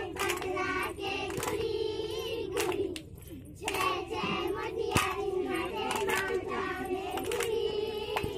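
A group of children singing together in unison and clapping their hands in rhythm, with a brief pause in the singing about three seconds in.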